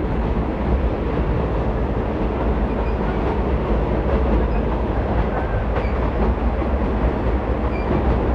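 Moving commuter train heard from inside the passenger carriage: a steady rumble and rattle of the running train, with a few faint clicks from the wheels and rails.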